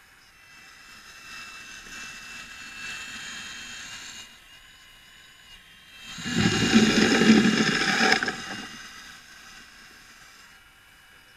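Radio-controlled model wheel loader working: a whine of electric motors and gears for a few seconds, then a louder rush of noise lasting about two seconds, starting about six seconds in, as the bucket works at the dirt.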